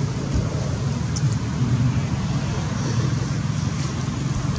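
Steady low background rumble, continuous and even, with no distinct events.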